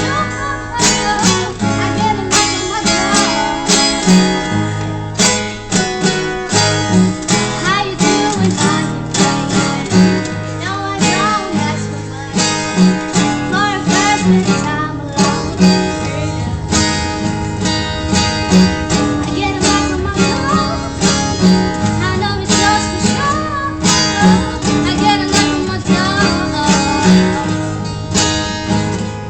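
Acoustic guitar strummed in a steady rhythm while a voice sings along.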